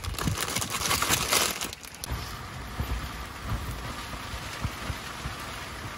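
A foil-lined plastic snack bag crinkles as a hand rummages in it, stopping about two seconds in. Then steady rain falls on the car's roof, heard from inside the car, with scattered drops tapping.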